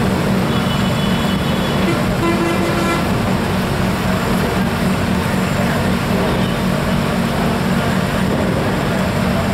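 Steady low drone of a river car ferry's engine, heard from its open car deck, with a brief faint higher tone about two seconds in.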